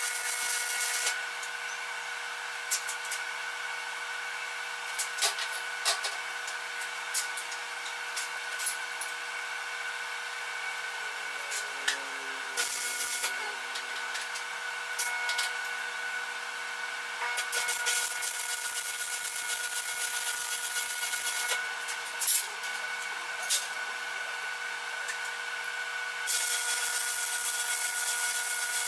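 Arc welding on steel: a steady hiss peppered with sharp crackles and pops, laid down as several long beads with short breaks about 12, 17 and 22 seconds in, stopping near the end. A steady hum from the shop equipment runs underneath.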